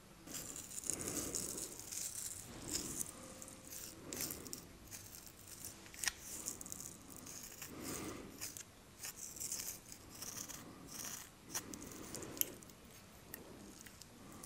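Fingertips and long acrylic nails rubbing and scratching through a man's short hair and beard, close to the microphone: rustling in swells every second or two, with small clicks of the nails.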